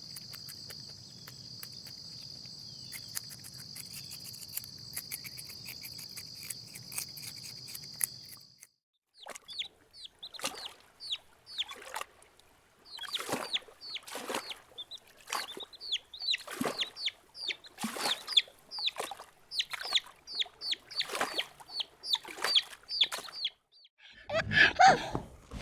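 Crickets chirring steadily for the first eight seconds or so. After a brief gap, chickens cluck and chirp in a run of short, repeated calls. Near the end a louder call breaks in, likely the start of a horse's whinny.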